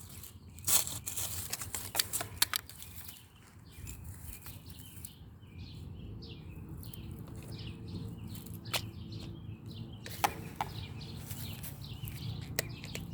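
A few sharp plastic clicks and knocks in the first couple of seconds as a plug and a GFCI outlet are handled, then a steady low hum sets in about five seconds in, with faint bird chirps over it.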